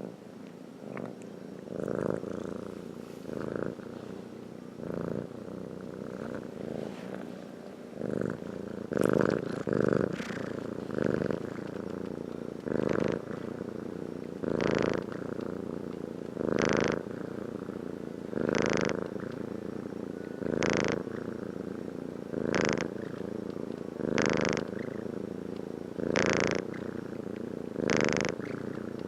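A sleeping pet snoring in a steady rhythm, one snore about every two seconds, softer and more irregular in the first few seconds.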